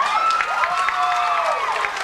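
Audience applauding and cheering, with several high voices whooping over the clapping.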